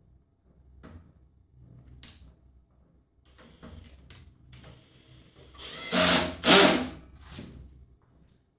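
Cordless drill-driver driving screws into the side of the battery case. The motor whirs in short runs, with two loud bursts about six seconds in and a shorter one after.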